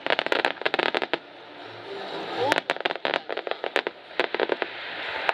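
Aerial fireworks crackling: dense flurries of sharp pops from crackling stars. One flurry comes in the first second and a second from about two and a half seconds in.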